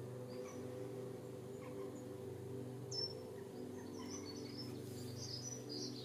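Garden songbirds singing faintly: a sharp falling high note about halfway through, then a quick high warbling phrase near the end. A steady low hum runs underneath.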